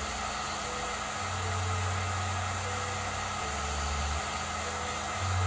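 Black+Decker heat gun running on its lowest fan speed, a steady rush of blown air, as it heats a laptop chipset for reflow soldering.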